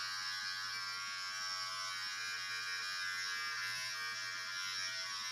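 Electric beard outliner (hair trimmer) buzzing steadily as it trims a beard line.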